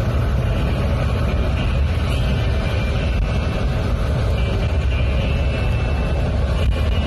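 Steady low rumble of a vehicle driving at highway speed: engine, tyre and wind noise heard from on board.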